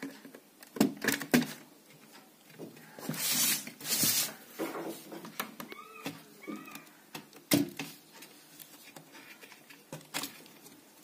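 Handling noise from fingers and mains wires on a set-top box's power supply board and metal case: scattered clicks and taps, with two rustling swishes about three to four seconds in.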